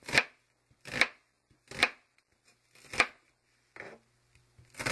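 Chef's knife cutting through an onion onto a plastic cutting board, a sharp chop about once a second.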